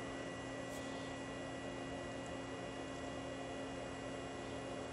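Steady low hum and hiss with a few constant faint tones and no distinct events: background room tone.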